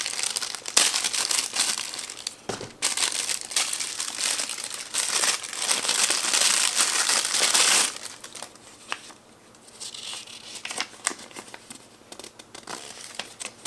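Packaging being crinkled and rustled by hand while unpacking a toy box, loud and continuous for about eight seconds, then dropping to quieter scattered rustles and small clicks.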